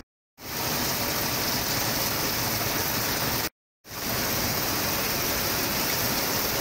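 Heavy rain falling, a steady, even hiss of rushing water. It cuts out to dead silence for a moment about halfway through, then carries on unchanged.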